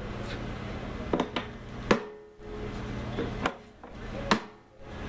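Hammer blows driving a steel hoop down on an oak wine barrel: five or six sharp strikes, irregularly spaced, the hardest about two seconds in and again near the end.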